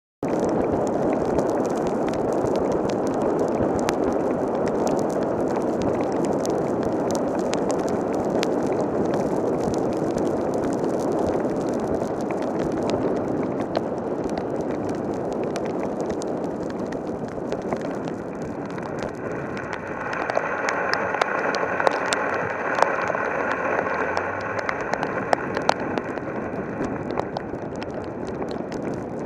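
Heavy rain pouring down steadily, with many sharp drop hits ticking through the downpour. About two-thirds of the way in, a faint steady multi-toned hum joins the rain.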